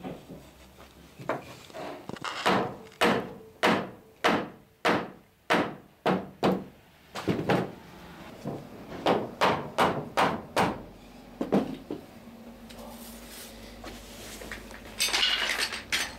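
A run of sharp knocks on wood, about two a second, with a short pause about seven seconds in, stopping about eleven seconds in.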